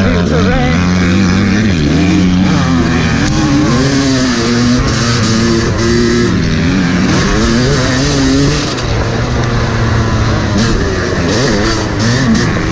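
Dirt bike engine heard from on board, revving up and easing off again and again as it is ridden around a motocross track, with a brief drop in revs about two thirds of the way in.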